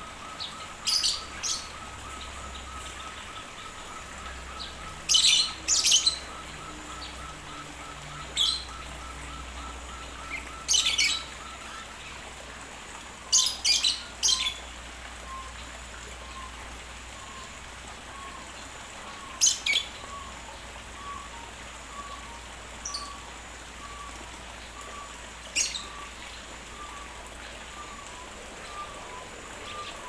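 Hill partridge (puyuh gonggong) calling: a long series of evenly repeated whistled notes, a little lower in pitch after about twelve seconds. Loud, short, high-pitched bird chirps break in every few seconds, in ones and pairs.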